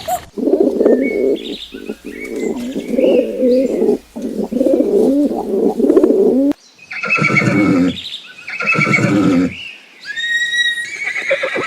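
A succession of animal calls: about six seconds of dense, low warbling calls, then two loud drawn-out calls about a second apart, and a short high call near the end.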